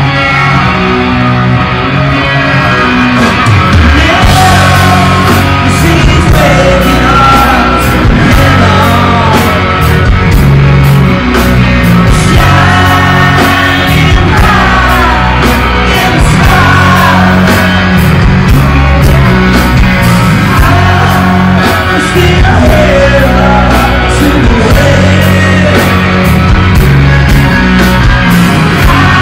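Live hard rock band playing loud, with electric guitars and a male lead vocal singing over them. The full band comes in with a steady beat about four seconds in.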